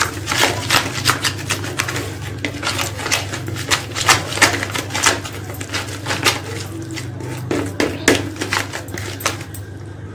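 Coil wire whisk beating a thick yogurt, gram flour and spice paste in a plastic bowl: rapid, irregular clicking and scraping of wire against the bowl.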